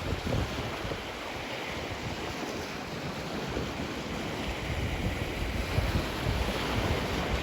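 Ocean surf washing onto a beach in a steady rush, with wind buffeting the microphone in low gusts.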